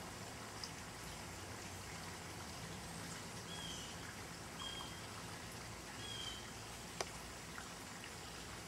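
Quiet outdoor garden ambience: a steady, even hiss with three short, high, slightly falling chirps in the middle and a single sharp click about seven seconds in.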